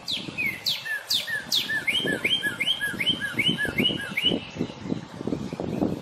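Northern cardinal singing: a few loud down-slurred whistles, then a quick run of about nine repeated two-part notes, about four a second, that stops a little after four seconds in. A low rustling noise runs beneath.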